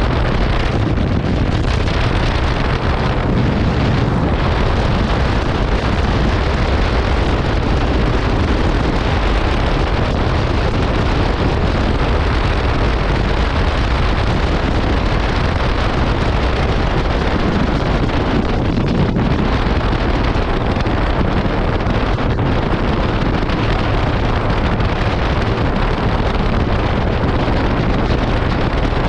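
Wind rushing over the microphone on a moving motorcycle, with the 1985 Honda CB700SC Nighthawk's inline-four engine running underneath at a steady cruise.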